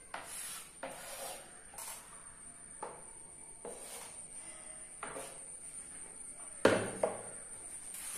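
Geometry drawing instruments scraping and rubbing on paper while a perpendicular bisector is constructed: a run of short scraping strokes, roughly one a second. Two sharper, louder knocks come near the end, as if an instrument is put down on the table. A faint steady high whine sits underneath.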